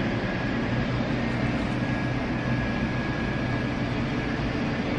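Steady low rumble and hiss of restaurant room noise, with no distinct events.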